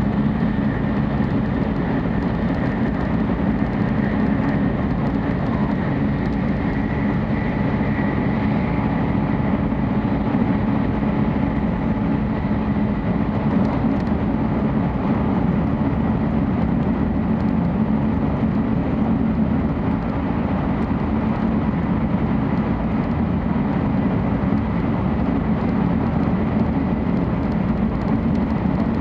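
Tokaido Shinkansen 700 series train running at speed, heard from inside a passenger car: a steady, continuous rumble with a faint high whine held on one pitch.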